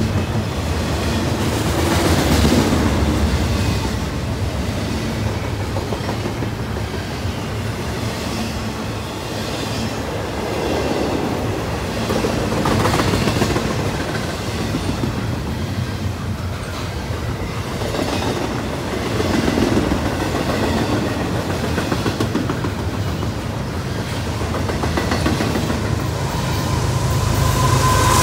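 Double-stack intermodal well cars of a freight train rolling past: a steady rumble of steel wheels on rail with clickety-clack over the joints, swelling and fading every several seconds. Near the end the sound grows louder as the mid-train GE ES44AH diesel locomotive comes alongside.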